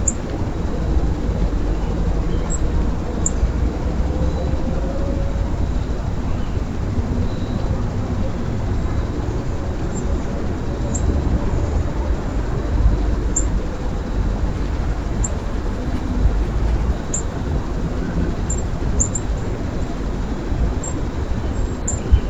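Steady low outdoor rumble, with small birds giving short, very high chips scattered every second or two.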